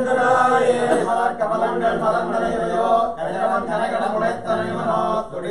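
A man's voice chanting mantras in a steady sung recitation, with a couple of short pauses for breath.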